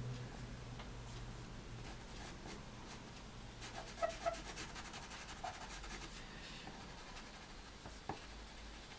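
Black Caran d'Ache pastel pencil scratching faintly over pastel paper in quick short strokes as fine branch lines are drawn, busiest in the middle few seconds.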